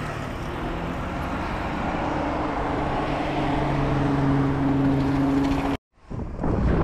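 Wind and tyre noise from a downhill mountain-bike run, with a steady low hum that grows louder before the sound cuts off suddenly near the end and comes back.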